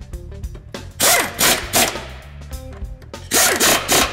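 Ratchet wrench running in the two 13 mm exhaust hanger bracket bolts: two spells of rapid clicking, each about a second long, over background music.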